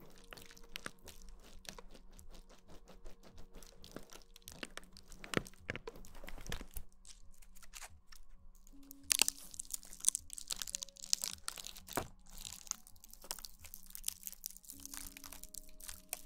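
Close-miked ASMR crackling and crunching: dense, irregular crisp clicks, like something being crinkled or scratched right at the microphone. It grows louder and busier about halfway through, over faint soft background music.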